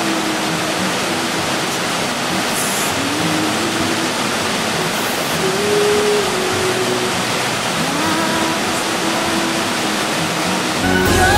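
Water of a small waterfall rushing over rock, a steady loud hiss, with faint held notes of background music under it. Music with a strong bass comes in loudly just before the end.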